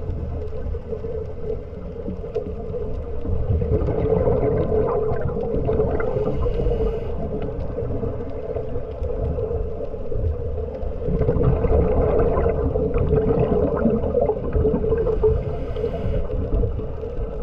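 Underwater sound of a scuba diver's regulator breathing, with exhaled bubbles gurgling in two long surges, about four seconds in and again from about eleven seconds. A steady low hum runs underneath.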